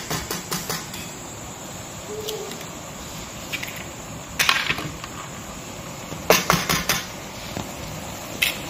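Eggs being cracked against the wok and dropped into frying bottle gourd: several bursts of sharp taps, over a steady low sizzle from the pan.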